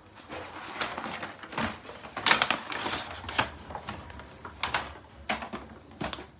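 Someone eating a fast-food chicken burger close to the microphone: a series of short crinkling and rustling noises, loudest about two seconds in.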